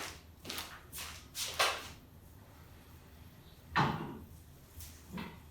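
A few short knocks and clunks from something being handled, the loudest about four seconds in, over a faint low hum.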